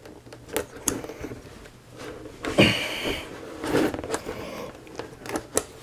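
Saab 9000 fiberboard rear deck panel being handled and pushed into place: scattered light knocks and clicks, with a short rushing scrape about halfway through.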